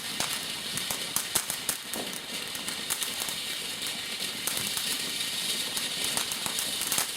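Firework burning with a steady hiss and a rapid, irregular crackle of small pops.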